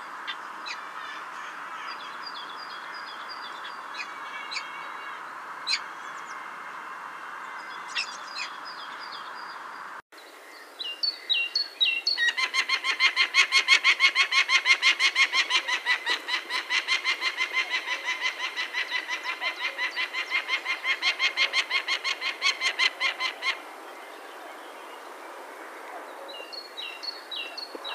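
Peregrine falcon giving its harsh, rapid cacking call, about four calls a second, starting about eleven seconds in and lasting about twelve seconds. Before the calls there is a steady hiss with a few faint small-bird chirps.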